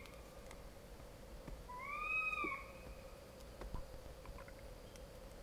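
A single wailing animal cry from outside, rising then falling in pitch, about a second long and faint, around two seconds in.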